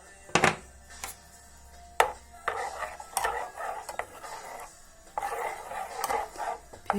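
A spoon clinking sharply against a saucepan several times, with scraping and stirring noises in between, as honey is worked into melted butter. Faint background music plays underneath.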